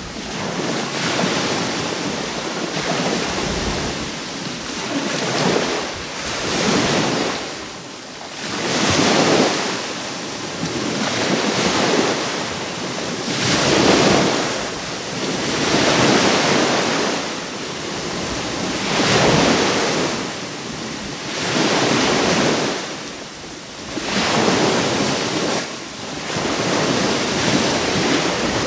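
Small surf breaking and washing onshore, swelling and fading every two to three seconds, with some wind on the microphone.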